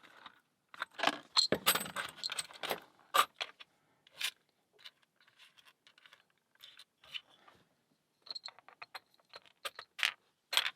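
Metal wafers and housing of a disassembled wafer lock clicking and clinking as they are handled: scattered light clicks, with a quick run of ticks about eight seconds in.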